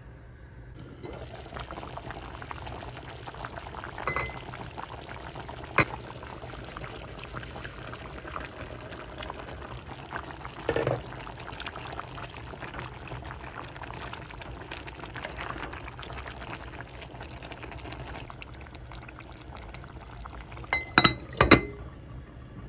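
A steady liquid sound in the kitchen, with a few sharp clinks of utensils or glassware; the loudest clinks come in a quick group near the end.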